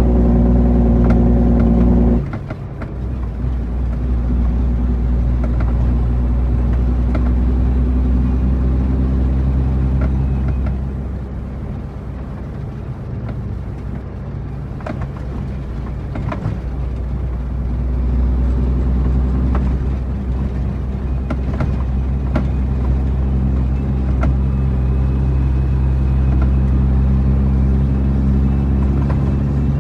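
International 9300 truck's diesel engine pulling under load. The throttle is let off sharply about two seconds in, the engine runs lighter for a stretch in the middle, then it pulls steadily again.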